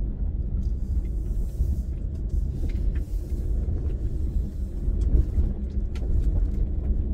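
Subaru XV driving slowly up a steep, loose gravel track, heard from inside the cabin: a steady low rumble of engine and tyres on the rough surface, with a few small knocks from stones.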